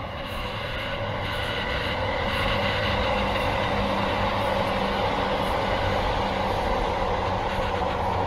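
A train passing nearby: a steady rumble that swells over the first few seconds and then holds, with faint high tones that fade about three seconds in.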